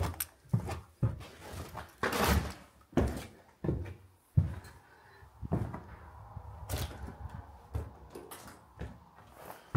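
A run of irregular thuds and knocks, one every half second to a second, with a longer crunching scrape about two seconds in. In the second half the knocks are fewer and fainter.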